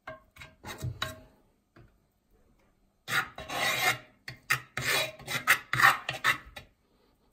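A hand rubbing lard over the inside of an unglazed earthenware sač, scraping against the rough clay. There are a few quick short strokes at first, a pause, then longer strokes from about three seconds in. This is the seasoning of a new clay pot, with fat worked into the pores of the clay.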